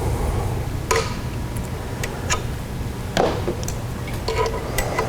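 Sharp, irregular clicks and ticks of small metal parts being handled as the brush springs and carbon brushes are worked out of the edger motor's brush holder, over a steady low hum.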